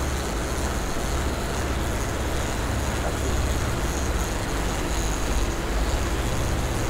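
Boat engine running steadily with an even low hum, under the rush of water from the churning wake and wind.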